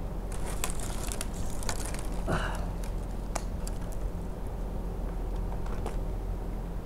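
Metal climbing hardware (carabiners, rope wrench and pulley) clicking and clinking against the rope as a tree climber shifts his rigging, over a steady low hum, with one short rising squeak about two seconds in.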